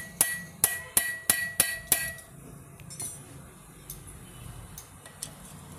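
Hammer blows on a star (Phillips) bit held in a reed-valve screw of a two-stroke engine: about six sharp, ringing metal strikes in quick succession, driving the screw fully tight. The strikes stop after about two seconds, and a few light taps follow.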